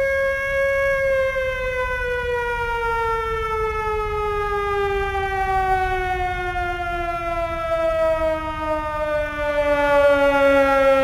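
Civil-defence air-raid siren sounding one long tone that holds for about a second and then slowly falls in pitch as it winds down.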